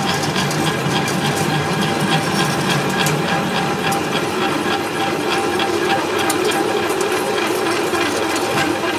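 Metal lathe running while a twist drill in the tailstock bores into a spinning metal disc, a long spiral chip curling off the bit. Steady machine running with a fast, even ticking over it.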